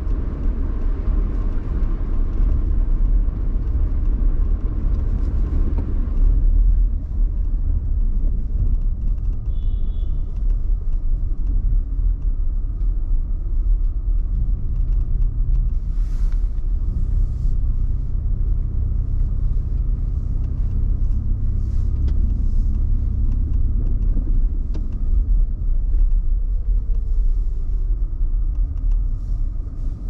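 Car driving through snowy city streets: a steady low engine and road rumble. A hiss of tyres on the road drops away after about six seconds, and a steady low engine hum comes in through the middle. A brief high beep sounds about ten seconds in.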